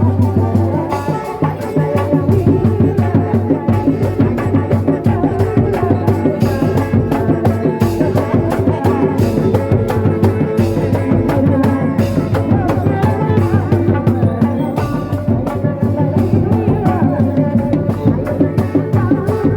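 Kuda lumping troupe's percussion ensemble playing: a fast, dense run of drum strokes under a wavering melody line.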